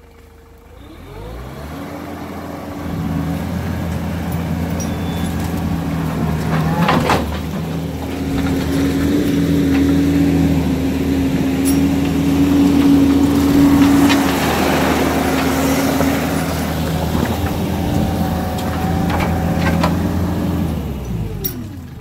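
New Holland LS170 skid steer's diesel engine revving up about a second in and running steadily at working throttle as the machine drives, with a couple of sharp clanks along the way. The engine eases back just before the end.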